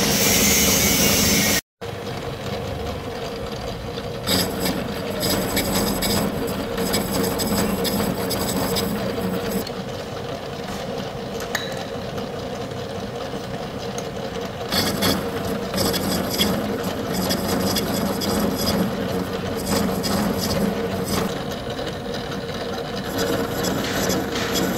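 Milling machine running while its gear cutter mills the teeth of a worm wheel: a steady machine hum under the grating of metal being cut. The sound cuts out completely for an instant about two seconds in.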